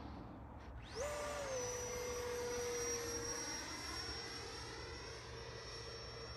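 The 80 mm electric ducted fan of an FMS Rafale model jet spools up sharply about a second in, then holds a steady high-pitched whine that settles slightly lower in pitch.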